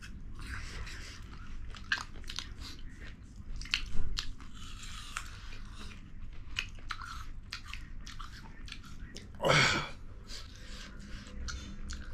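People chewing and biting food, many short sharp clicks of mouth and teeth, with one brief louder sound that sweeps in pitch about nine and a half seconds in.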